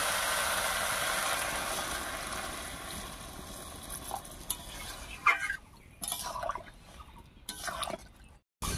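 Water poured into a hot wok of frying curry paste, jackfruit and potato, a loud hiss that fades away over the first few seconds. Then a spatula stirring the gravy, with light scrapes and clinks against the wok.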